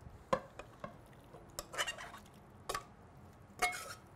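Aluminium saucepan clinking and scraping against a glass baking dish as cooked pineapple is tipped out of it: a few sharp knocks early, then short scrapes, the loudest with a brief metallic ring near the end.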